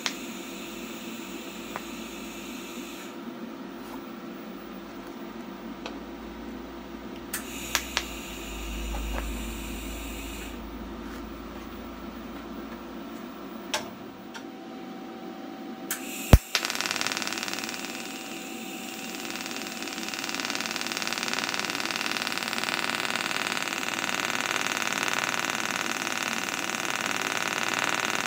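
TIG welding arc hissing steadily with a faint buzz. It is quieter in the first half, broken by a few sharp clicks, then louder and brighter from about sixteen seconds in, after a sharp click.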